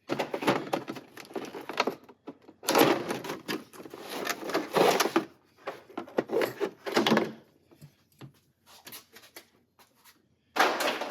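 Tool packaging being pulled open where it is taped shut: three long bouts of tape and cardboard tearing and rustling, then a few light clicks and taps as the contents are handled.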